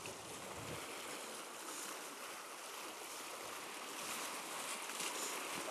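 Sea waves washing against a rocky shoreline: a steady rush of surf.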